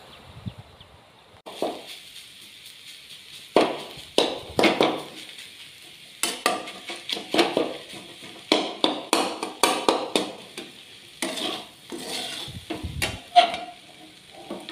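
Flat metal spatula scraping and clanking against a steel kadhai as rice is stir-fried, with a light sizzle underneath. The strokes start about a second and a half in and come roughly once or twice a second, some with a short metallic ring.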